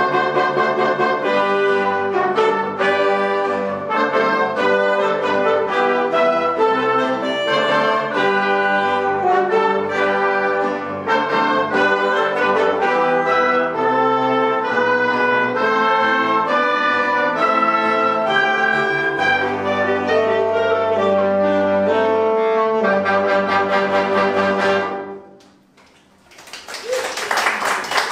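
Youth wind band of flute, clarinets, saxophones, trumpets and trombones playing a piece, which ends about 25 seconds in. After a brief pause, the audience applauds.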